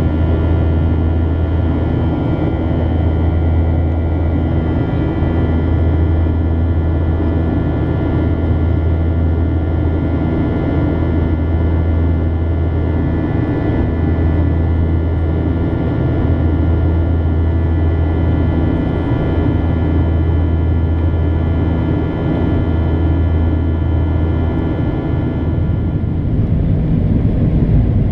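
Steady cabin noise of a Boeing 737-800 in flight: a loud, even drone from the CFM56-7B engines and the airflow, with a steady whine of fan tones above it. Near the end the low drone drops away and the sound changes.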